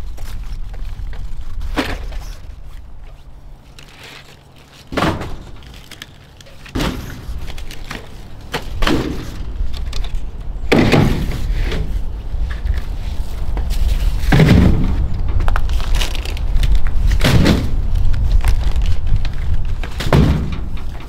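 Cases of bottled drinks being lifted and set down in stacks, with a thud every two or three seconds, about eight in all, the later ones louder, over a steady low rumble.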